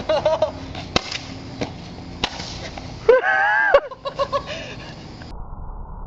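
Roman candle firing, several sharp pops under a second apart in the first half. A loud yell of about a second follows, then a few short laughs.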